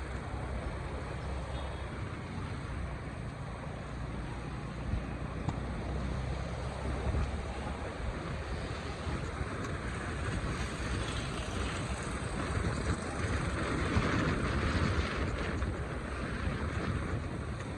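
Rainy city street noise: a steady rumble of traffic with the hiss of rain and wet roads, swelling louder for a few seconds in the second half as something passes close.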